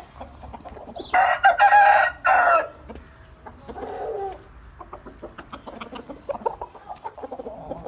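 Rooster crowing once, loud, about a second in and lasting about a second and a half. A shorter, softer call follows about four seconds in, with scattered light clicks and scuffs.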